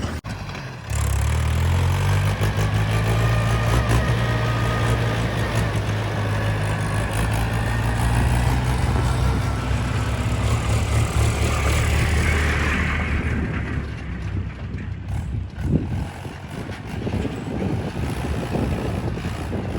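Heavy diesel machine engine running steadily under work, with a faint wavering whine over it. The engine sound drops away about two-thirds of the way through, and a single thump follows shortly after.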